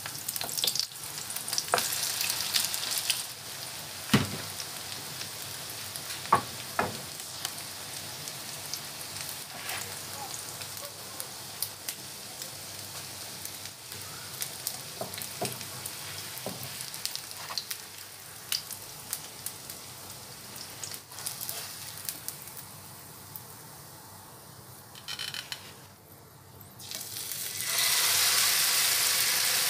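Sardine-and-egg patties frying in hot oil in a nonstick pan: steady sizzling with scattered clicks and scrapes of a spatula against the pan. The sizzle drops lower a little before the end, then jumps loud as a fresh spoonful of batter goes into the oil.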